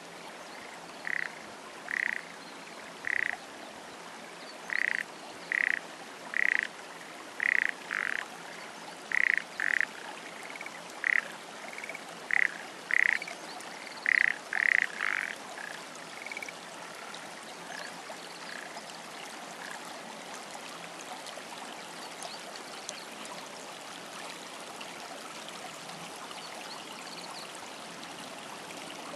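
A frog croaking: a run of short calls about once a second, some in quick pairs, that thins out about halfway to a few faint calls, over a steady hiss.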